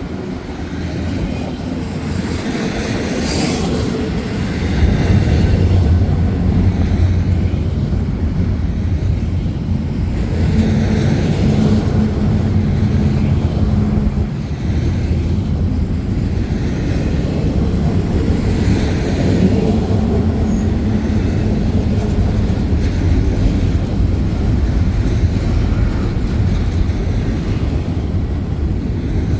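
BNSF intermodal freight train rolling past: a steady rumble and clatter of wheels on rail that gets louder about five seconds in.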